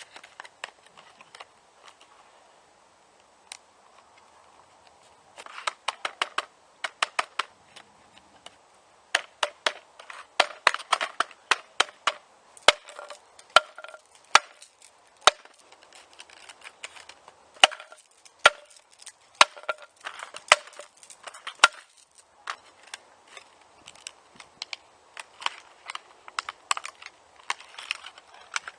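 Stiff plastic blister pack of a padlock being forced open: a long run of sharp plastic cracks and crackles, sparse at first, then coming thick and fast, with a short lull before more near the end.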